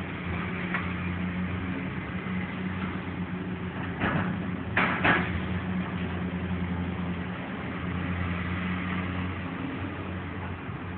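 An engine running steadily, with a few sharp knocks about four to five seconds in.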